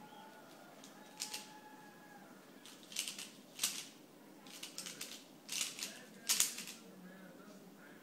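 Dayan ZhanChi 3x3 speedcube turned rapidly by hand during a timed solve. Its plastic layers give off clusters of quick clacking turns separated by short pauses, loudest about six seconds in.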